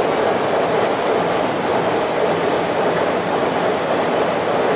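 Freight train's wagons rolling across a steel truss railway bridge: a steady rumble of wheels on the rails with no distinct clicks.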